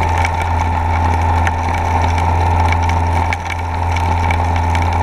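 Steady drone of a submersible suction dredge's pump running underwater, a deep hum with a higher steady tone above it, dipping briefly about three and a half seconds in. Scattered faint ticks run over it as sand is drawn into the intake.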